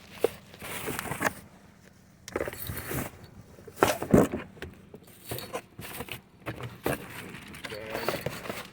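Handling of a portable air compressor and its accessories: irregular rustling, clicks and knocks, with a louder thump about four seconds in.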